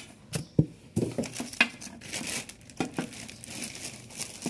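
Clear plastic zip bags of spare parts crinkling as they are handled, with several sharp clicks in the first three seconds.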